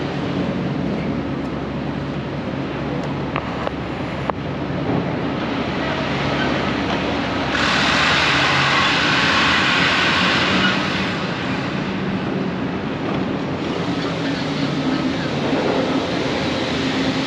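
Steady outdoor traffic and engine rumble with a low hum. A louder rushing hiss swells for about three seconds in the middle.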